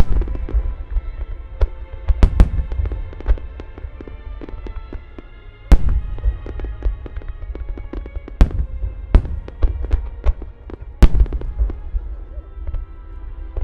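Aerial firework shells bursting in rapid succession in a music-synchronised starmine, a string of sharp deep booms with the loudest coming about 6, 8½ and 11 seconds in. The show's accompanying music plays under the bursts.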